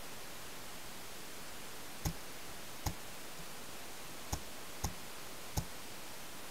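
Five sharp pops of paintball fire, unevenly spaced in the second half, over a steady hiss.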